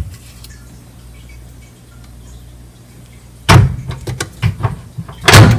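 Microwave oven door swung shut with a loud thump about three and a half seconds in. A few light clicks follow, then a second thump near the end.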